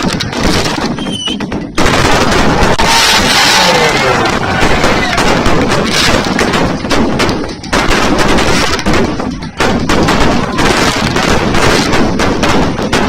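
Fireworks and firecrackers going off in a rapid, continuous barrage of cracks and bangs, like machine-gun fire, with a few short whistles.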